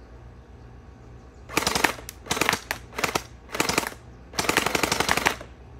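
Splatterball SRB 400 gel blaster firing on rapid fire: five quick bursts of shots in a fast rattle, starting about a second and a half in, the last burst the longest.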